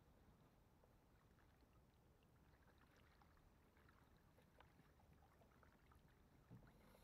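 Near silence, with only a few faint scattered ticks.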